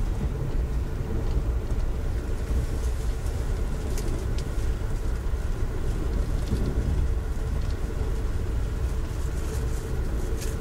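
Steady low rumble of an Amtrak passenger train running along the line, heard from inside the coach, with a few faint clicks over it.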